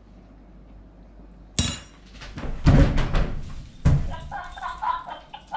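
A sudden clatter, then heavy thumps and knocks as a man drops to the kitchen floor in a mock faint. Near the end comes a quick run of short, high-pitched sounds.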